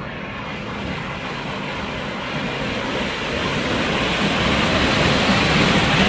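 Heavy farm machinery running and drawing closer, a dense engine-and-rushing noise that grows steadily louder.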